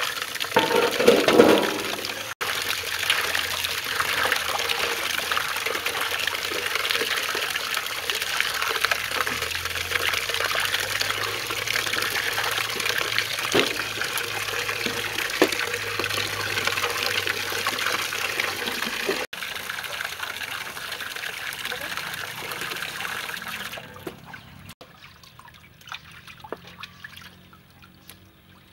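Running water pouring into an aluminium basin of raw chicken wings, with a louder splash as the wings are tipped in early on and steady sloshing as hands wash them. In the last few seconds the running water is gone and only scattered drips remain.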